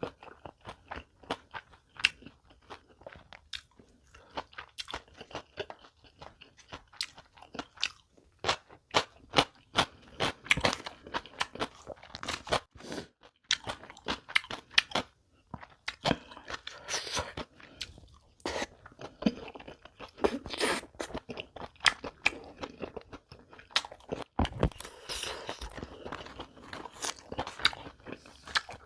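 Close-miked chewing of crisp, crunchy food: many sharp, irregular crunches with short pauses between bites.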